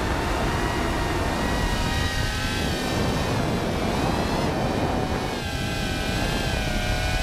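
Electric motors and propellers of a 5-inch FPV quadcopter whining, the pitch wavering up and down as the throttle changes, over a steady rumble of wind on the microphone.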